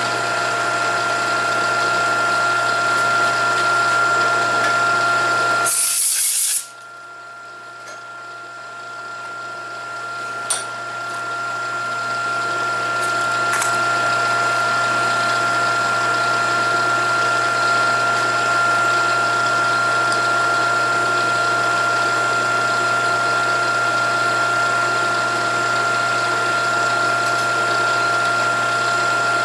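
Milling machine running with a steady pitched whine and hum. About six seconds in there is a brief high hiss. The sound then drops sharply and builds back up over several seconds to a steady run.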